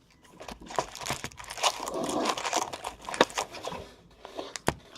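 Plastic trading-card packaging being crinkled and torn open by hand, an irregular crackle with sharp clicks that eases off after about three and a half seconds.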